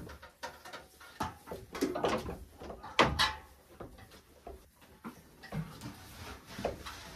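Knocks and clatter of a stainless steel milking pail and its lid being handled, with the loudest clank about three seconds in.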